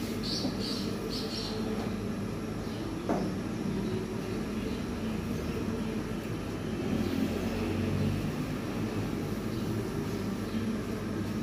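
Steady low mechanical rumble, with a few brief scuffs in the first second and a single knock about three seconds in.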